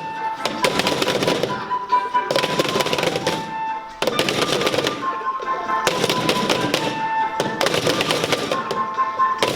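Dance music playing, with a dense crackling percussive texture under a melody that repeats in phrases of about two seconds.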